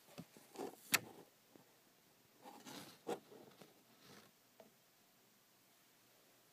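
Handling noise of a camera or phone being moved and set in place: short rustles and knocks, with a sharp click about a second in and another cluster of rustles around three seconds in, then quiet.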